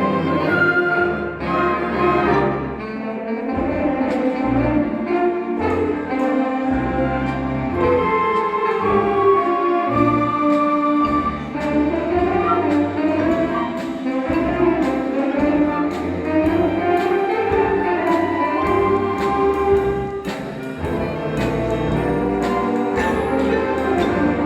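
A high school symphonic band playing a Christmas arrangement: brass and woodwinds carrying a moving melody over sustained bass notes that change every second or so.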